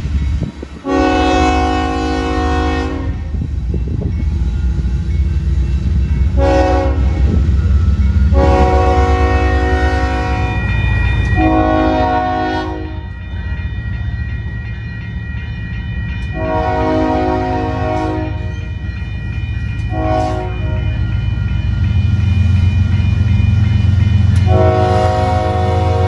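Union Pacific diesel locomotive air horn sounding a series of long and short blasts, each a chord of several steady tones, over the low rumble of the locomotive's diesel engine.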